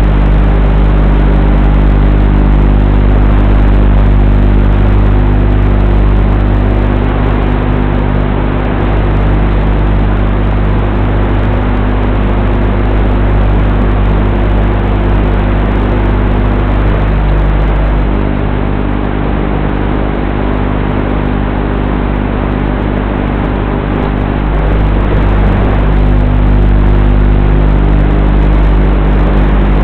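Steady, loud hum of several fixed low tones over a dense hiss, picked up through the onboard FPV camera of a radio-controlled sailboat under sail. The hum holds its pitch throughout and dips slightly for a few seconds past the middle.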